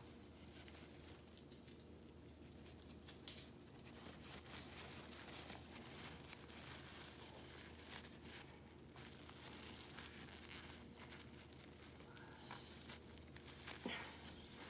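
Faint crinkling and rustling of a paper tissue worked against a dog's nose to wipe away mucus, with a brief louder rustle about three seconds in and another near the end.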